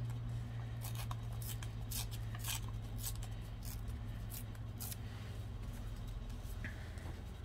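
Paper being handled at a craft table: irregular light rustles and ticks of paper and small tools, over a steady low hum.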